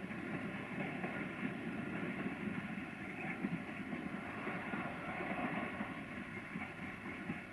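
Freight train of rail tank wagons rolling past in the distance: a steady rolling rumble of wheels on rails.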